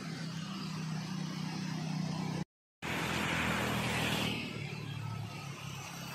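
Steady low hum of a vehicle engine over a constant rushing noise. The sound drops out completely for a moment about two and a half seconds in, then comes back with a brief louder hiss.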